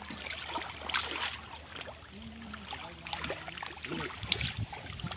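Hands splashing and sloshing in shallow muddy water in irregular bursts, groping for fish in a drained pond.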